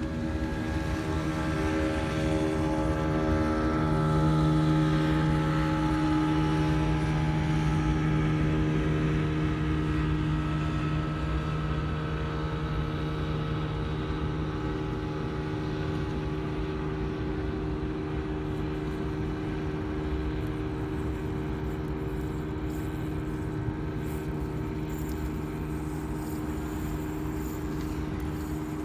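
An engine running at a constant speed, a steady hum with several tones. It is loudest about four to six seconds in, then slowly fades.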